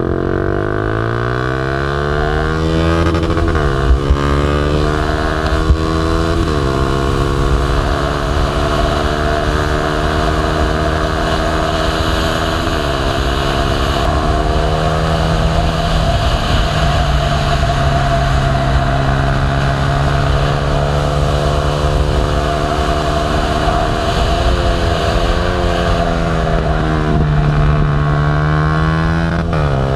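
Motorcycle engine heard from an onboard camera at speed, over steady wind rush. It revs up through the gears with quick shifts, each one a sudden drop in pitch, in the first few seconds and again about a third of the way in, holds a steady pitch between, and wavers and drops near the end as the bike eases into a corner.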